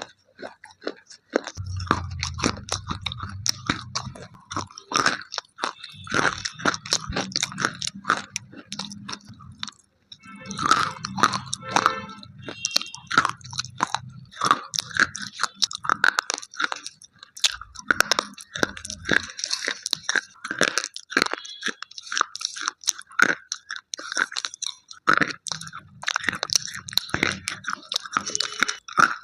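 Slate pencils being bitten and chewed: a dense, fast run of sharp crunches.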